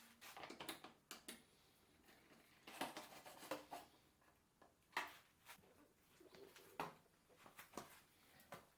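Faint, scattered clicks and light rustles of handling, sharpest about three, five and seven seconds in, against near silence.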